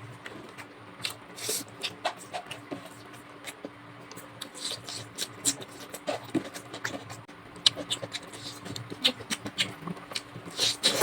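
Close-miked eating sounds of chicken drumstick curry and rice: chewing with irregular wet clicks and smacks, busier in the second half, over a faint steady hum.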